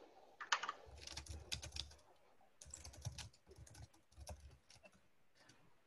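Computer keyboard typing: faint runs of quick key clicks with short pauses, thinning out in the last second or so.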